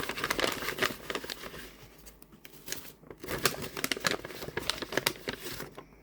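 Packaging crinkling and rustling in irregular bursts as a ritual kit is opened by hand and its contents are taken out, busiest at the start and again in the second half.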